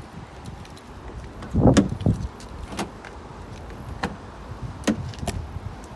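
Handling noise in and around a car: one loud dull thump about a second and a half in, then several short sharp clicks spread out after it.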